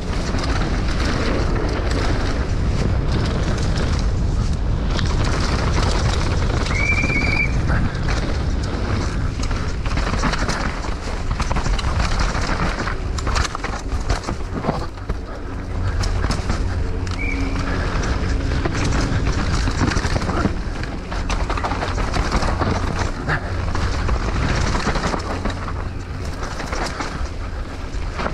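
Downhill mountain bike ridden fast down a dirt trail: steady wind rush on the microphone, with tyres on dirt and the bike clattering and rattling over the bumps. There are two brief high squeaks, one about 7 seconds in and one about 17 seconds in.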